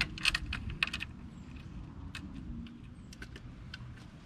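Light metallic clicks and rattles from a metal patio sling-chair frame being handled and pressed into place, a quick cluster in the first second, then scattered single clicks.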